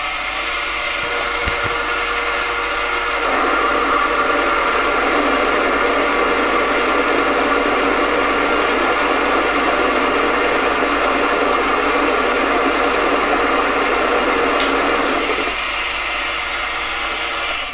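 AMA 714B 500-watt mini lathe running, taking a 0.5 mm deep dry cut along a tool-steel bar. From about three seconds in, the cut adds a louder, harsher grinding over the motor and gear whine. It lasts about twelve seconds and falls back to the plain running sound before the machine stops at the end. The lathe manages the deep cut without stalling.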